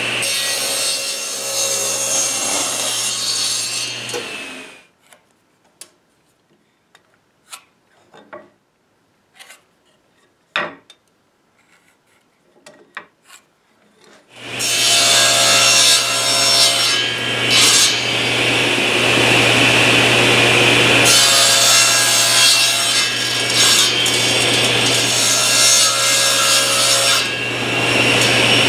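Table saw running and cutting wooden blocks, a steady motor hum under the noise of the blade in the wood. It stops after about four and a half seconds, leaving a quiet stretch of light taps and clicks, then starts again about halfway through and runs to the end.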